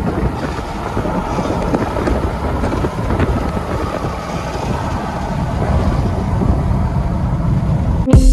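Steady road and wind noise inside a vehicle travelling at highway speed, mostly a low rumble. Music cuts in abruptly near the end.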